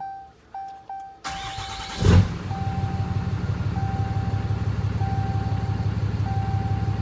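2013 Ram 2500's 6.7 L Cummins turbo-diesel cranked by the starter for about a second, catching about two seconds in and settling into a steady idle. A warning chime beeps repeatedly over it.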